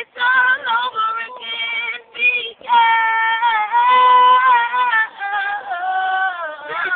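A woman singing loudly without words of speech, sliding between notes with vibrato and holding one long note in the middle.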